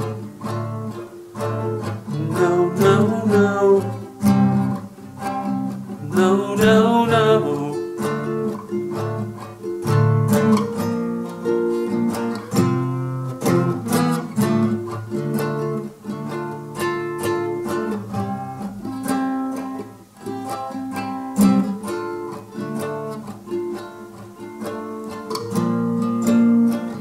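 Solo classical-style acoustic guitar playing an instrumental passage of plucked notes and chords.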